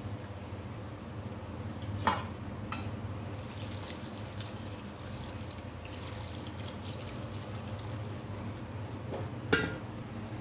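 Water pouring and splashing into a steel bowl as roasted fish are rinsed by hand, with a few short knocks, about two seconds in and near the end.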